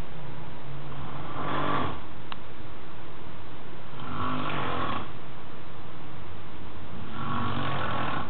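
A sleeping man snoring: three rattling snores about three seconds apart, each lasting about a second. A brief click sounds a little after two seconds in.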